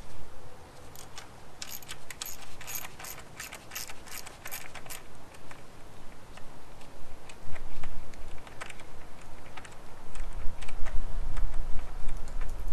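Small oil supply lines and their fittings on a 2009 Evinrude E-TEC 200 HO powerhead clicking and rattling as they are wiggled by hand, engine off: a quick run of clicks in the first few seconds, then a few scattered ones. A low rumble comes in near the end.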